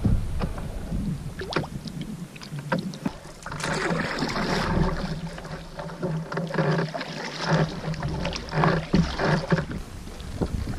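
Canoe paddling on a lake: a paddle dipping and pulling through the water in uneven strokes, with splashes and water swishing along the hull.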